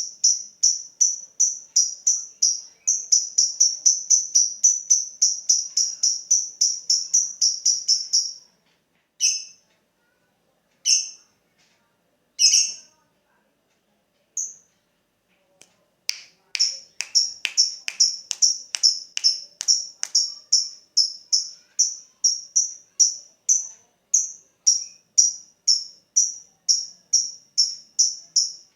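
Lovebird ticking ('ngetik'): an even run of short, high, sharp chirps, about three a second. About 8 s in it breaks off into a few single chirps, then the steady run picks up again about 16 s in.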